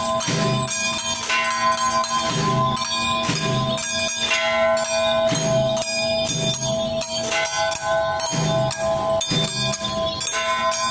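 Taiwanese temple-procession percussion accompanying a Jiajiang troupe: drum beats in a steady repeating pattern under continuous jingling bells and ringing metal.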